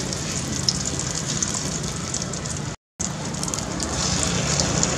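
Egg omelette sizzling and crackling in hot oil in a wok, with a steady low hum underneath. The sound cuts out completely for a moment about three seconds in.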